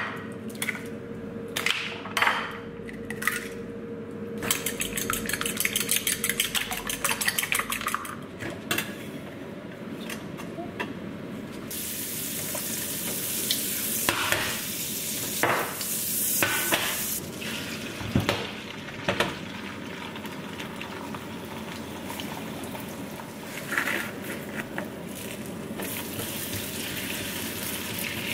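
Eggs cracked against a bowl and beaten quickly in it, a fast even clicking. Then oil and eggs sizzling steadily in a hot frying pan, with a few knocks of pan and spatula as the scrambled eggs are stirred.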